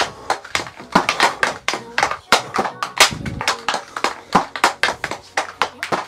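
Hockey stick blade knocking and clacking against the puck on a plastic dryland training pad during a passing drill: sharp, uneven taps about three a second.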